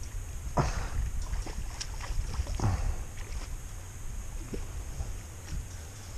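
Water splashing twice in a river, about two seconds apart, with a few smaller splashes between, over a steady low rumble of wind on the microphone.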